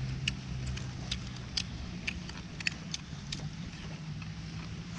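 A steady low motor drone, a little louder at the start, with light clicks and clinks of dishes and utensils scattered irregularly through it.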